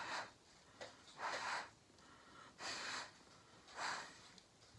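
Short puffs of breath blown through a plastic straw across wet acrylic pour paint, about one every second and a half.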